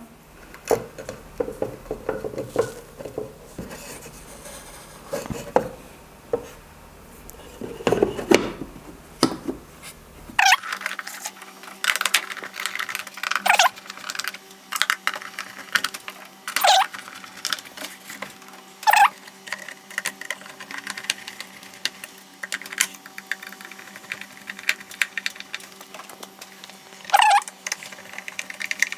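Small clicks, taps and scrapes of a screwdriver and hard plastic parts as the voice amplifier's case is screwed back together, with sharper clicks more often after about ten seconds over a faint steady hum.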